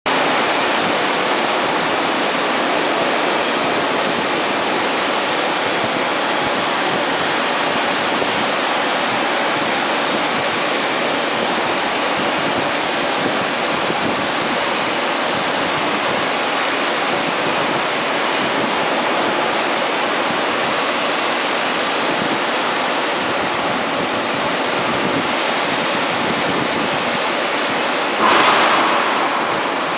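Oxy-fuel flame-cutting torches on a CNC gantry bevel-cutting machine hissing steadily as they cut thick steel plate. Near the end a brief louder rush swells and fades over about a second.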